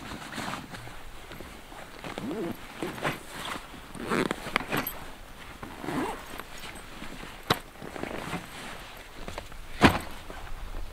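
Camping gear being handled and unpacked, with footsteps: irregular rustling and knocks, and a sharp knock near the end as the loudest sound.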